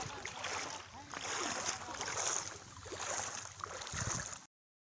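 Low rush of floodwater running over a road, with faint distant voices over it; the sound cuts off abruptly near the end.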